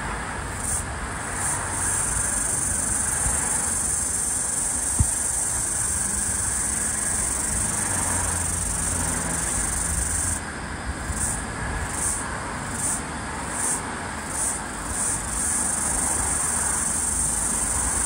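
Floury baker cicada (Aleeta curvicosta) calling: a loud, steady high-pitched buzz that breaks into a pulsing pattern of about one and a half pulses a second, briefly near the start and again for about five seconds from around ten seconds in. A low background rumble runs underneath.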